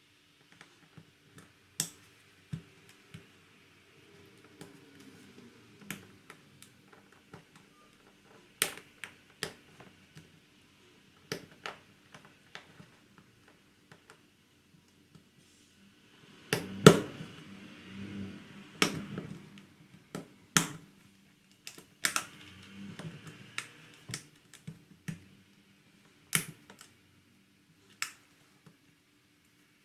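Scattered sharp clicks and light taps of small tools on a smartphone's plastic and metal parts during disassembly, over a faint steady hum. About halfway through comes a busier, louder stretch of clicks and handling noise.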